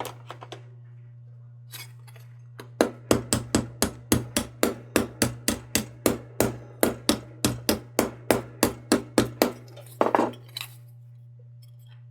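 A small hammer tapping quickly and evenly on a dented sheet-metal lantern crown, about three or four light blows a second for several seconds, then a couple more strikes, to work out the dents.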